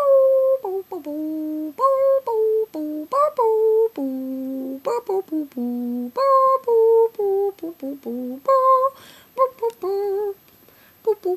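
A woman humming a tune in a string of held notes, stepping up and down in pitch with short gaps between them.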